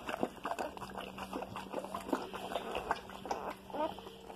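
Bully mother dog licking a newborn puppy out of its birth sac: rapid wet licking and smacking clicks, with a brief high squeak from a newborn puppy near the end.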